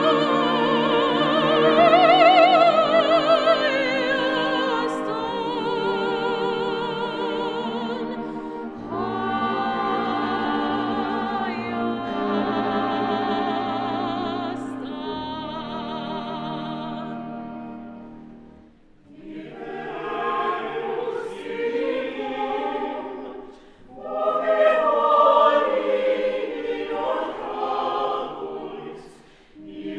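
Live classical performance of an Armenian folk song arrangement: a soprano sings with wide vibrato over a chamber ensemble of clarinet, violin, viola, cello and piano. About two-thirds of the way in a mixed adult and children's choir takes over, singing in short phrases with brief breaks between them.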